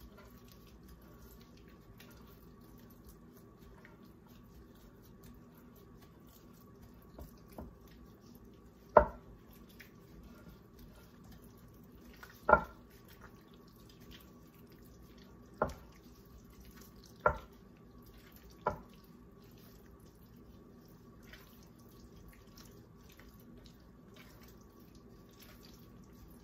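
Wonton filling being stirred by hand in a glass mixing bowl, mostly quiet. About five sharp knocks of the glass bowl sound between about nine and nineteen seconds in.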